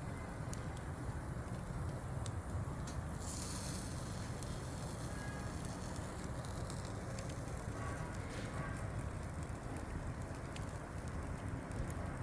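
Fish grilling over hot charcoal: crackling with scattered sharp pops over a steady low rumble. From about three seconds in, a louder high sizzle lasts for several seconds as oil is brushed onto the fish and drips onto the coals.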